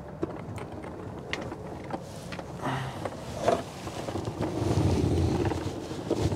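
Low vehicle engine rumble that swells and eases near the end, with scattered footsteps and light knocks.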